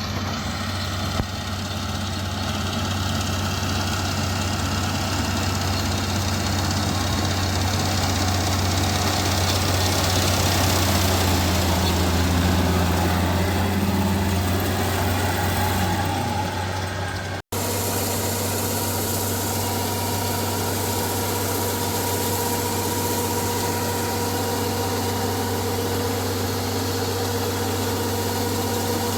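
Rice harvester's engine running steadily with a low, even hum. The sound drops out for an instant a little past halfway.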